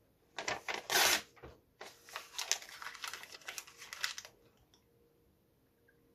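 Printed paper being bitten and torn with the teeth, a loud rip about a second in, then crackly crinkling of the paper being chewed that stops about four seconds in.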